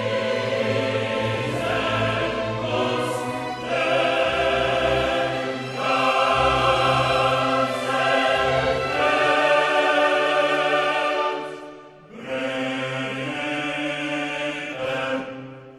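Background music: a choir singing slow, operatic phrases with orchestra, in long held notes. The music dips briefly about twelve seconds in and fades near the end.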